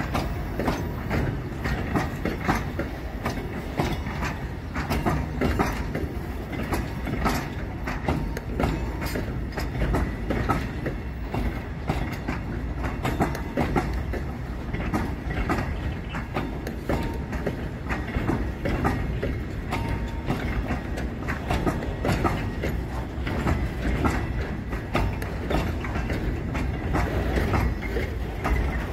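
Container freight wagons rolling past at close range: a steady rumble of steel wheels on rail, with a continual clickety-clack of clicks as the wheelsets pass over rail joints.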